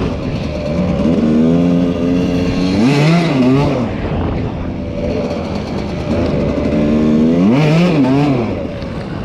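Enduro dirt bike engine running under throttle, revving up and dropping back twice, about three and eight seconds in.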